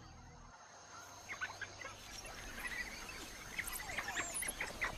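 Many quick, high-pitched animal chirps and squeaks, starting about a second in and growing busier toward the end.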